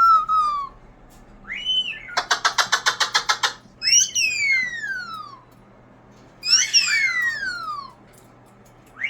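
Pet bird whistling its mimicked falling-bomb sound: two long whistles sliding steadily downward in pitch, after a fast run of repeated notes at about nine a second.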